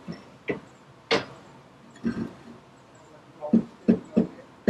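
Two sharp knocks about half a second apart from work on a John Deere 457 round baler's top roller, then a few short bursts of voice near the end.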